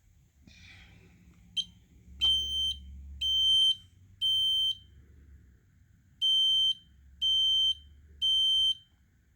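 SC9120B smoke alarm being tested: after a brief chirp it sounds the temporal-three alarm pattern, two sets of three loud, high-pitched half-second beeps about a second apart, with a pause between the sets.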